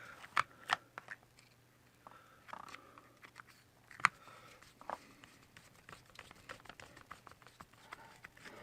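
Small irregular clicks and taps of a screwdriver and plastic and metal parts being handled while a replacement exhaust is screwed onto an RC nitro car, with the sharpest click about four seconds in.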